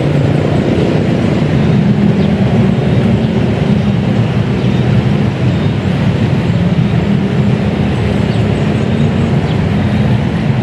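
An engine running steadily and loud, with an even low hum and no change in speed.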